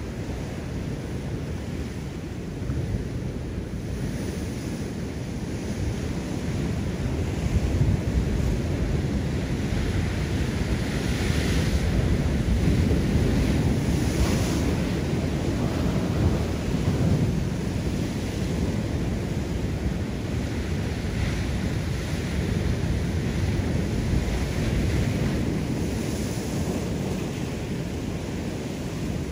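Ocean surf breaking and washing over a rocky shoreline, a steady rush with repeated hissing surges, with wind buffeting the microphone. The surf grows louder through the middle and eases toward the end.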